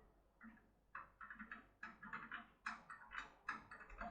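Faint, irregular metal clicks and scrapes, a few a second, from a 6+6 lever lockpick being worked in a lever tumbler lock.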